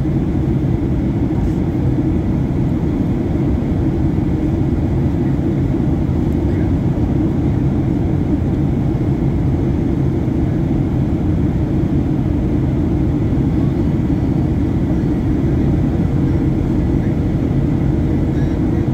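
Steady jet airliner cabin noise heard from a window seat over the wing: a constant deep rumble of engines and airflow, with a faint steady whine on top.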